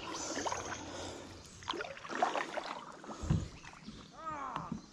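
Kayak being paddled and moved on the water: paddle and water sloshing against the hull, with a low knock on the hull a little past three seconds in.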